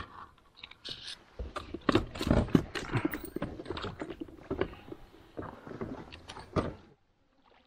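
Irregular knocks, clicks and scrapes of fishing tackle being handled in an inflatable boat. They stop abruptly near the end.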